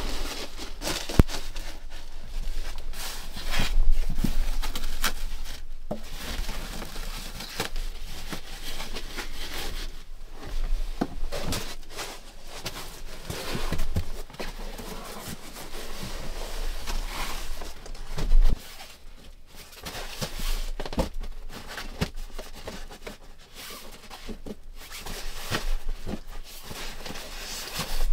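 Rustling and handling sounds as a person moves about, working with fabric and a bag, with scattered sharp knocks and clicks.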